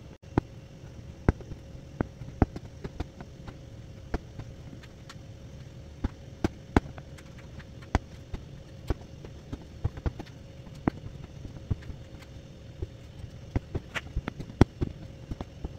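Aari hook needle punching in and out of net fabric while chain-stitching a zari (metallic thread) outline. It makes irregular sharp clicks, about one or two a second and some much louder than others, over a faint steady hum.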